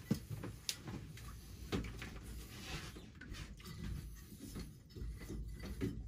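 Scattered metallic clicks and knocks from hands handling the fittings at a steam boiler's gauge glass and low-water cut-off as they are taken apart, with a brief hiss about two and a half seconds in.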